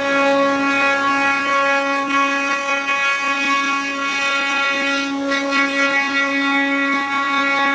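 Spindles of an eight-head CNC wood router running at speed, a steady high-pitched whine with overtones, as the bits carve turned wooden workpieces.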